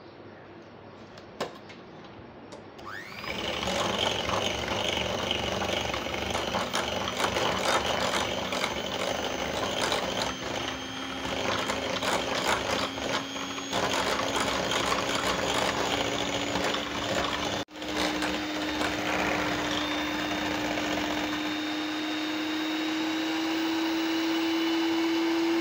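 Electric hand mixer starting about three seconds in and running steadily, its beaters whipping cream in a glass bowl toward soft peaks. The motor's hum creeps slowly higher in pitch, and there is a brief break about two-thirds of the way through.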